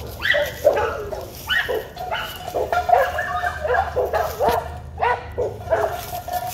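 An American Pit Bull Terrier puppy barks in a quick run of short, high yips, about two a second, with a couple of longer whining notes between them.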